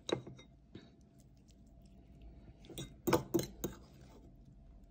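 A metal utensil clinking against a serving dish: one clink at the start, then a quick run of three or four clinks about three seconds in.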